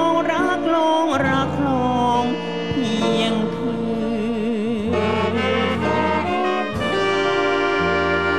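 Female singer backed by a big band of saxophones, brass and strings. She ends her line on a long note with vibrato about halfway through, and about seven seconds in the band comes in with a held brass chord.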